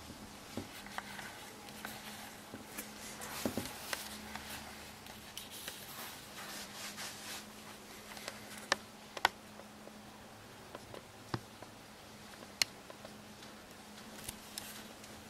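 Faint hiss and a low steady hum with scattered small clicks and taps, like handling noise picked up by a camera's built-in microphone.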